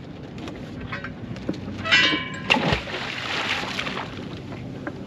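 Boat motor running low in reverse while the anchor is lowered over the bow on its line. About two seconds in comes a brief high ringing tone, then a rush of water and wind noise.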